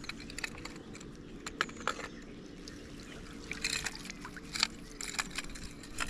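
Flowing river water with scattered small clicks and taps, thickest about two seconds in and again past the middle.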